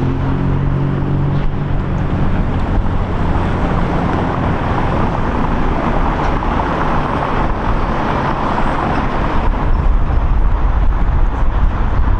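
Loud, steady motor-vehicle noise, with a low engine hum early on giving way to a dense rushing noise, the low rumble growing stronger near the end.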